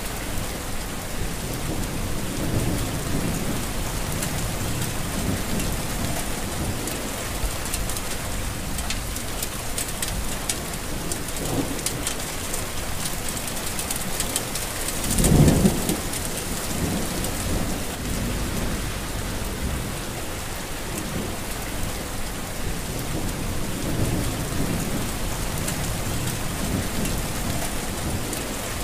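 Heavy rain falling steadily, with many fine drop ticks, and low thunder rumbling now and then; the loudest rumble comes about halfway through.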